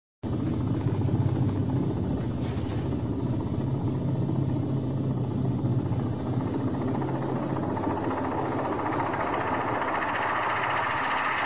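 Helicopter engine and rotor noise: a steady low drone, with a higher hiss building from about eight seconds in.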